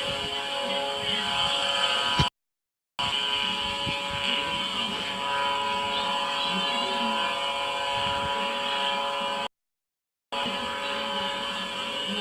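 Boat engine running at a steady, unchanging pitch, with two brief breaks of dead silence in the sound, one a little after two seconds in and one near the end.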